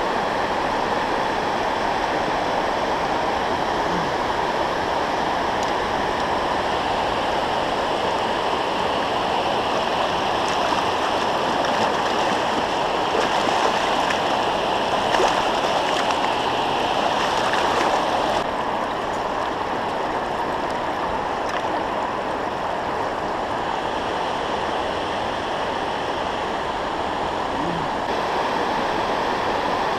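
Steady rush of river water pouring over a low dam spillway. From about ten seconds in, closer splashing at the water's surface adds a brighter hiss for several seconds and stops suddenly.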